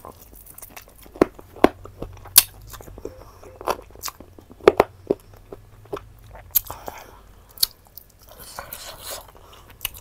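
Close-up mouth sounds of a person chewing pork: irregular sharp wet smacks and crunchy bites, roughly one a second, with a softer noisy stretch shortly before the end.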